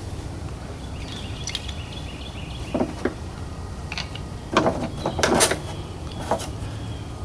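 Several separate knocks and clatters of tools and parts being handled and gathered up, the loudest cluster about four and a half to five and a half seconds in, over a steady low background rumble.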